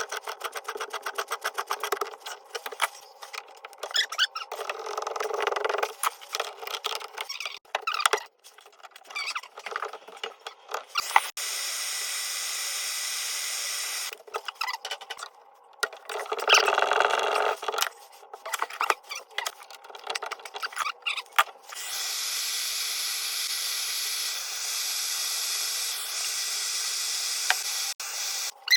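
Tool work with a fast run of clicks at the start and scattered knocks and scraping, broken by two stretches of steady hissing a few seconds long.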